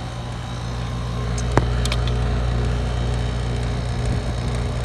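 Brand-new 1.5-ton Goodman heat pump outdoor unit running in cool mode: a steady low hum from the compressor and condenser fan, growing louder over the first two seconds. A single sharp click sounds about a second and a half in.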